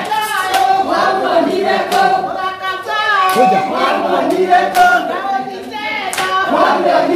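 A group of people singing together, with scattered hand claps.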